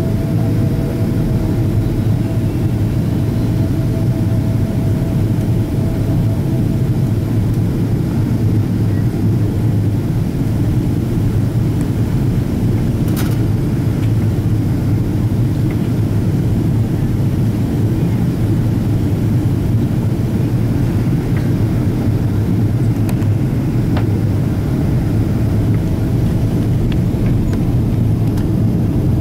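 Steady, loud airliner cabin noise inside a Boeing 777-200ER: the low rumble of its Rolls-Royce Trent engines and the airflow past the fuselage. Two faint steady tones fade out about seven seconds in, and a single click sounds about halfway through.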